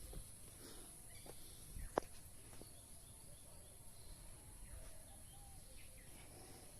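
Quiet forest ambience: faint bird calls over a steady high hiss, with one sharp tap about two seconds in.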